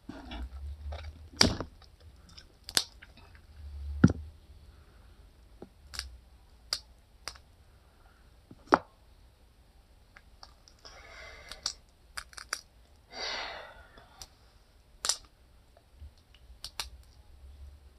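A person eating seafood boil with her hands: chewing and mouth noises with scattered sharp clicks, and two brief rustling sounds past the middle.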